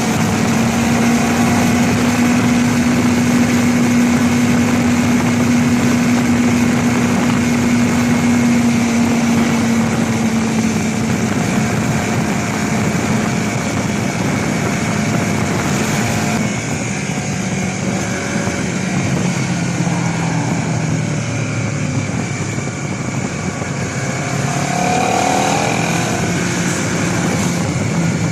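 Honda CBR250RR engine on the stock exhaust, running at a steady cruising pitch under a broad rushing noise. In the second half the pitch falls in steps and then rises briefly near the end.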